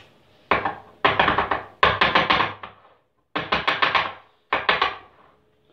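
Metal spoon knocking and scraping against a small glass jar while thick pepper paste is spooned in and packed down, in five quick runs of taps with short pauses between them.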